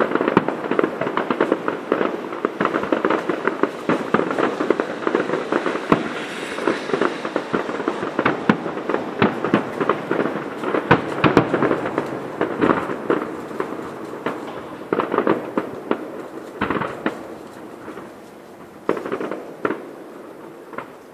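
Fireworks display: a dense, rapid series of cracks and pops, thinning out after about fifteen seconds to a few separate bangs.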